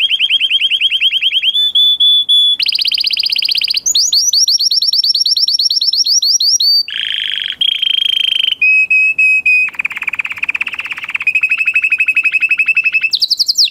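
Domestic canary singing a long song of fast trills: runs of quickly repeated notes, each held for a second or two before it jumps to a new pitch, some rising and some steady.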